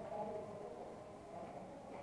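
Faint, distant voices over low room noise.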